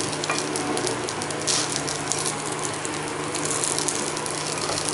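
Semolina-and-vegetable batter pancake sizzling in butter in a nonstick frying pan: a steady crackling hiss as the just-flipped side fries.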